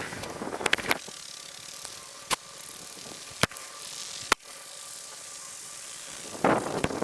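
Clicking from a small toy fishing reel: a quick run of clicks in the first second, then a few single sharp clicks spaced about a second apart.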